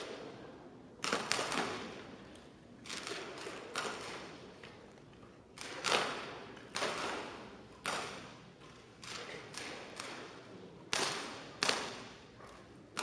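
Daisy BB guns firing one after another along a shooting line, sharp pops at irregular intervals of about a second or less, each with a short echo from a large hall.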